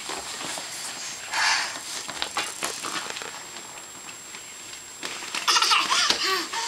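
A toddler clambering into an inflatable vinyl toy car, with rubbing and rustling noises and short squeals and grunts from the child. The loudest squeals come near the end.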